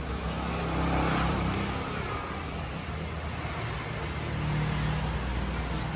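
Passing road traffic: a steady low engine hum that swells twice, about a second in and again later on.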